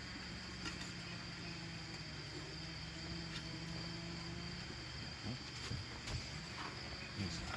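Light taps and scrapes of utensils as fajita filling is spooned onto tortillas, over a steady faint high hiss and a low hum that stops about two-thirds of the way through.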